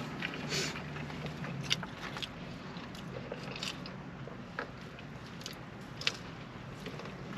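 A person chewing and biting into a cheeseburger close to the microphone, with a few short wet mouth clicks scattered through the chewing.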